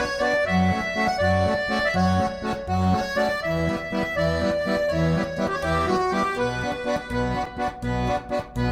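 Instrumental music: accordion chords held over a bass line that pulses on a steady beat.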